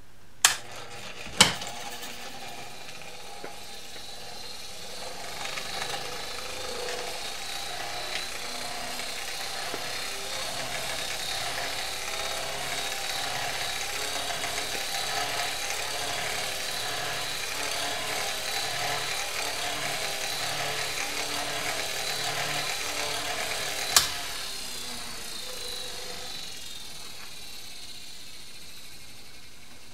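Fort Wayne "Wood System" antique hanging electric fan with an AC brush-type motor. Two sharp clicks at the start, then the motor spins up and runs with a steady whirring and a high hiss. A sharp click about three-quarters through, after which the fan winds down.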